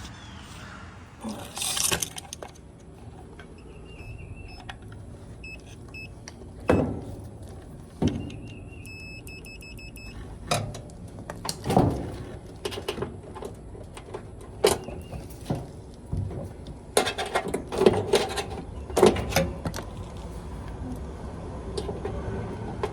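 Clicks, knocks and metallic clatter of tools and dryer parts being handled during disassembly, with a few faint short high beeps early on and a busier stretch of clattering near the end.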